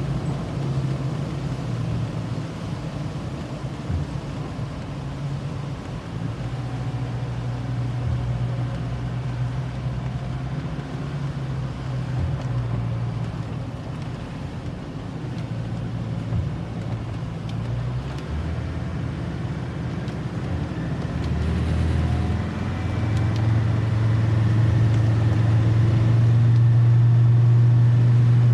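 Land Rover Defender heard from inside the cabin, its engine pulling uphill over tyre noise on a wet road. The engine note changes about eighteen seconds in and again a few seconds later, then grows louder and holds steady toward the end.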